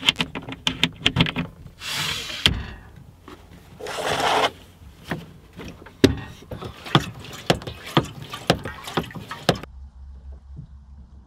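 Clicks, knocks and clatter of wooden boards and camp kitchen gear being handled and moved about, with two short rushing noises about two and four seconds in. Near the end it gives way to a low steady hum.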